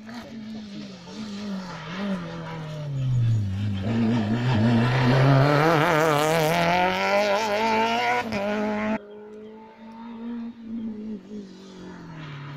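Rally car engine passing close: its note falls in pitch as the car comes off the throttle, then comes back up loud with a wavering, revving note in the middle. The sound cuts off abruptly about nine seconds in and is replaced by a fainter engine.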